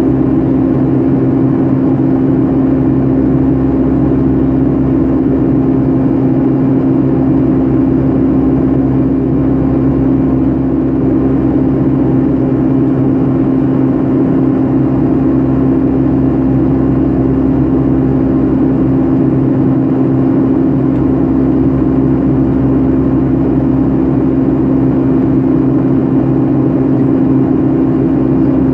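Steady interior noise of a Boeing 757-300 passenger cabin with the jet engines running: a loud, even drone with a strong low hum that does not change.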